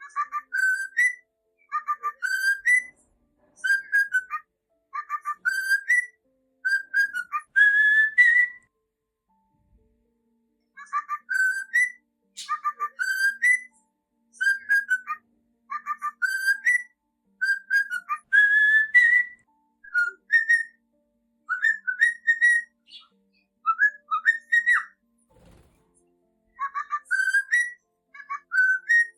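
Cockatiel whistling a short phrase over and over, each a quick run of clear notes that ends on a rising note. The phrases come about one a second, with two short pauses.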